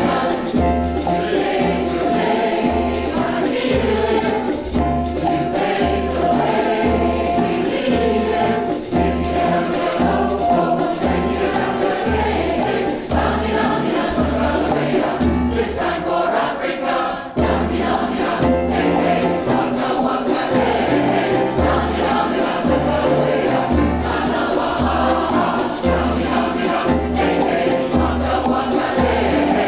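A large mixed choir singing an African song in parts, over a steady low percussion beat and a quick, regular high rhythm. The beat drops out briefly about halfway through, then comes back.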